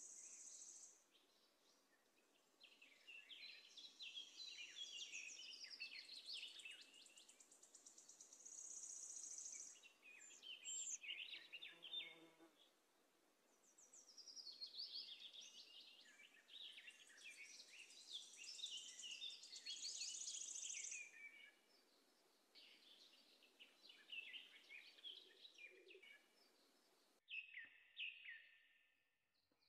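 Small birds chirping and twittering faintly, in phrases of a few seconds with short pauses between them, some with high thin trills.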